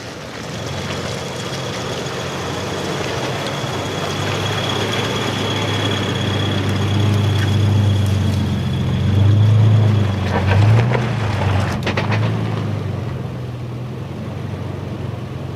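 A vehicle engine running, its pitch rising and falling several times in the second half as it is revved or loaded.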